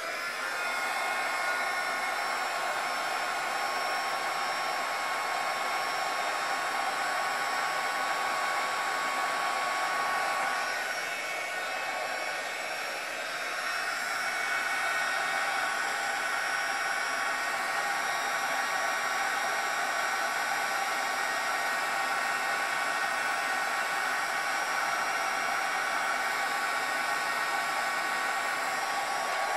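Handheld embossing heat gun running steadily as it blows hot air over a card to melt gold embossing powder: a steady airy hiss with thin, even motor whine tones, dipping slightly for a moment about halfway.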